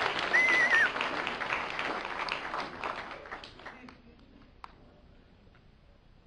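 Audience applause dying away over about four seconds, with a brief high-pitched squeal near the start. A few faint claps and knocks follow.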